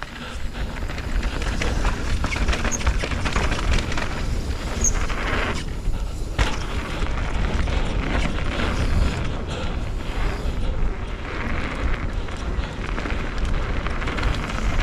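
Wind buffeting an action camera's microphone with a heavy rumble, over the clatter of a mountain e-bike's tyres and frame on a rough trail during a fast descent.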